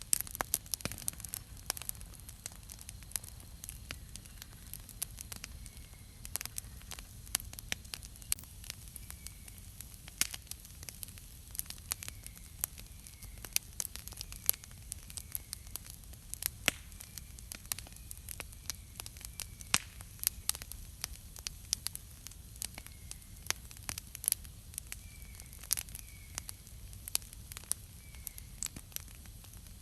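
Wood campfire crackling, with frequent sharp pops and snaps at irregular intervals. From about six seconds in, a bird gives faint short chirps every second or two.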